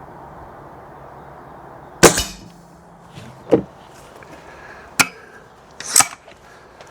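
Air Arms TX200 Hunter Carbine .177 spring-piston air rifle firing once, about two seconds in: a sharp crack with a short low ring after it. Three shorter clicks and knocks follow, the last one doubled.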